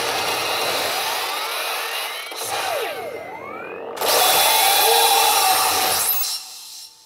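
Sound effects from a P北斗の拳9闘神 pachinko machine during a screen presentation: a noisy whooshing rush with sweeping rising and falling electronic tones, jumping louder with held tones about four seconds in, then dropping away near the end.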